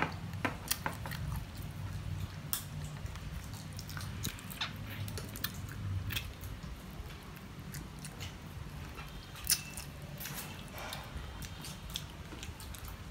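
Person eating chicken feet braised in Coca-Cola: irregular chewing and biting, with scattered sharp clicks and smacks, over a low steady hum.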